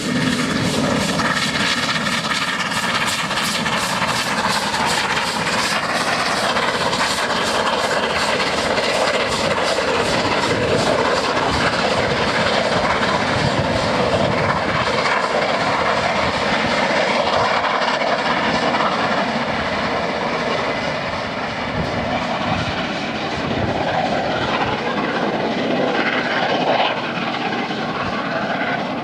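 The LMS Royal Scot class three-cylinder 4-6-0 steam locomotive 46115 Scots Guardsman passes at speed with its train, then runs on into the distance. Its exhaust and the running train make a loud, steady roar, with a fast, even beat over the first several seconds, easing a little in the later part.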